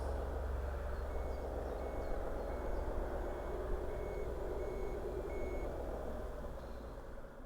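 Reversing beeper of a radio-controlled construction model, a short high beep repeating about every two-thirds of a second, seven times, over a steady engine-like hum that fades near the end.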